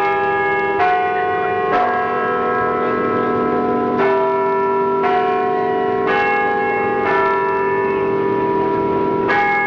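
Bells ringing, a new bell struck roughly every second, each ringing on and overlapping the next.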